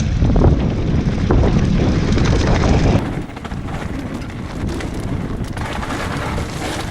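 Wind buffeting the microphone while a mountain bike rides down a trail, loud and low for about three seconds. It then cuts suddenly to a quieter stretch of tyre rumble and small rattles over rough ground.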